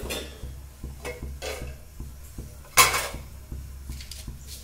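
Metal utensils clinking against an aluminium pressure cooker: a few light taps, then one louder clank nearly three seconds in, over a low steady hum.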